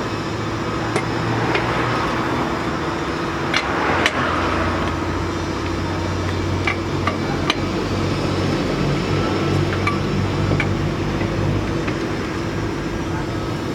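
A motor running steadily with a low, even hum, with a few sharp clicks and metal taps scattered through it.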